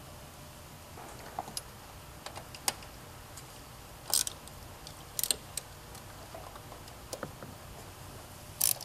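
Irregular light clicks and clinks of a hand ratchet with a long 5 mm ball-end Allen bit, turning and tightening the bolts of a diverter valve.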